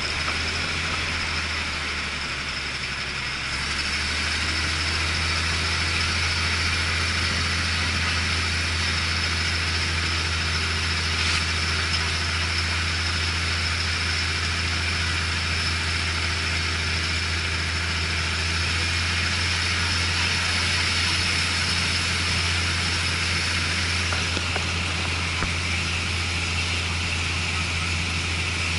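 Diesel local train pulling out of a station and gathering speed, heard from an open carriage window: a steady low engine drone with a haze of wheel and wind noise, growing louder about four seconds in.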